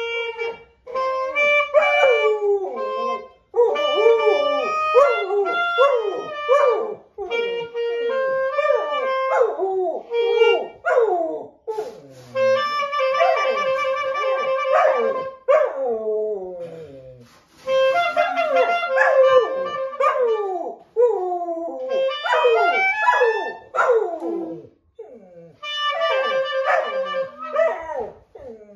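A labradoodle howling along with a clarinet: long wavering howls that slide up and down in pitch over the clarinet's held notes, in phrases with short breaks between them.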